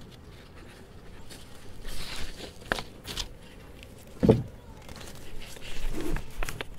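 Self-adhesive sail repair tape being pulled off its roll and its paper backing peeled and handled, giving soft rustling and crinkling, with a short thump about four seconds in.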